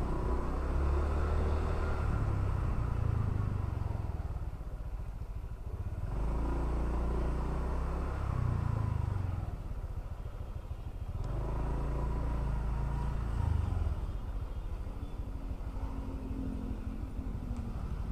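A motor scooter engine heard from the rider's seat while riding, with the throttle opened and eased three times. It runs lower and quieter for the last few seconds as the scooter slows.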